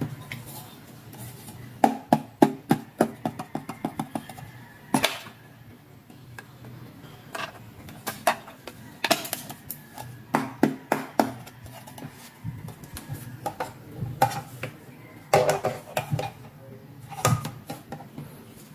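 Hard plastic toy doll accessories clicking and clattering as they are picked up, handled and set down, in clusters of quick taps with short pauses between.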